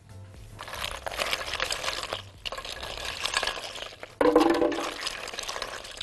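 Ice cubes and frozen berries tumbling and clattering into a plastic blender jar, a dense run of clicks and rattles. About four seconds in, a steady humming tone takes over for a second or so.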